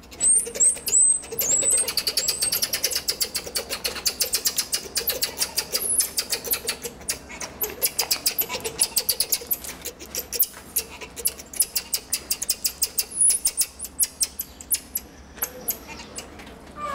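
Marmosets calling: a rapid series of sharp, high-pitched chirps, many a second, with a few short rising whistles near the start and again later.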